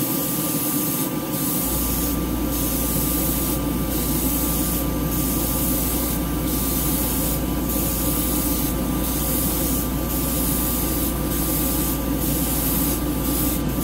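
Airbrush spraying acrylic paint in a heavy coat, a steady airy hiss that cuts briefly about once a second as the trigger is let off between passes. A steady spray-booth fan runs underneath.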